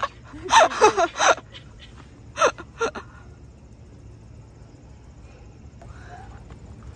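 Brief talk in the first second and a half, two short vocal sounds around two and a half and three seconds in, then a low steady outdoor background noise.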